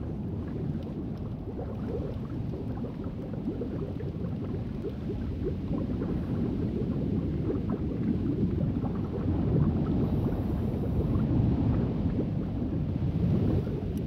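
Underwater ambience as picked up by a diving camera: a steady low rumble with fine crackling, swelling slightly about two-thirds of the way through.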